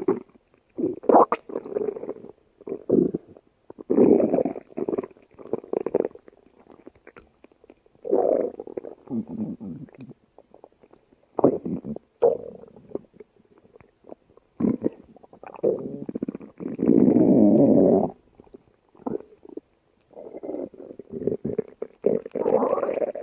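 A stomach growling and gurgling in irregular bouts with short quiet gaps between them. The longest, loudest growl lasts about two seconds, about two-thirds of the way through.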